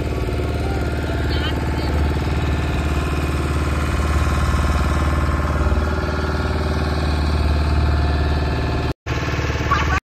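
Motor boat's engine running steadily with an even low throb. The sound drops out briefly about nine seconds in.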